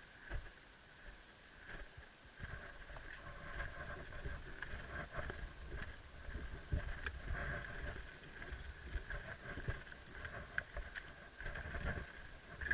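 Rustling and footstep-like movement noise with low rumble on the microphone, with scattered soft knocks and clicks over a faint steady high-pitched hum.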